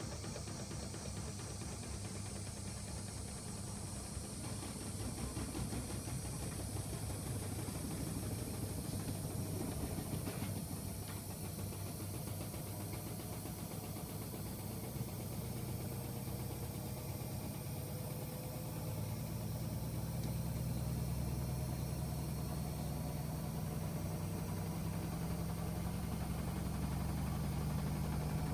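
AEG Öko-Lavamat 85739 washing machine running, a steady motor hum and drum rumble. From about halfway through, the hum grows a little louder and a faint whine slowly rises in pitch as the drum speeds up.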